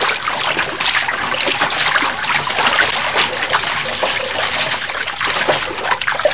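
Water splashing and trickling steadily: a dense hiss full of small irregular splashes.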